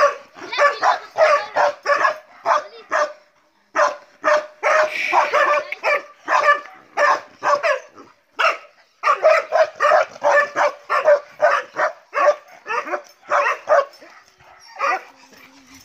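Dog barking in rapid, almost unbroken runs of sharp barks, about three a second, with a couple of brief pauses.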